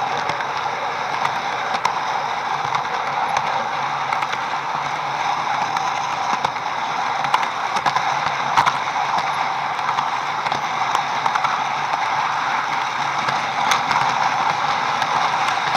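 HO-scale model train running on the track: a steady whir with many small, irregular clicks from the wheels on the rails.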